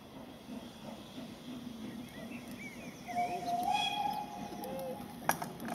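Steam tank locomotive whistle sounding once for nearly two seconds about three seconds in, stepping up slightly in pitch as it opens, over birdsong. A single sharp click comes near the end.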